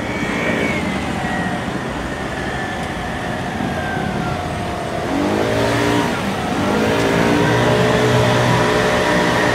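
A motor's whine that slides down in pitch, then rises twice about five seconds in and holds louder to the end, over a steady rush of wind noise from riding.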